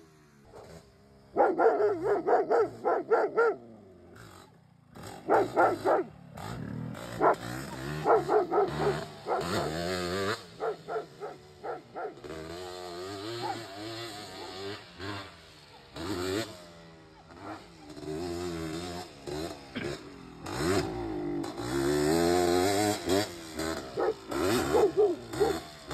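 A dog barking repeatedly in bursts, the loudest sound here, over the two-stroke engine of a 1986 Honda ATC250R three-wheeler revving up and down as it is ridden.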